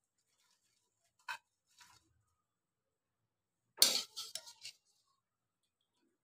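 Steel kitchen utensils clinking: two faint clicks, then a short clatter of several sharp metal knocks just past the middle, as a spoon and wire-mesh strainer are handled around the dish and wok.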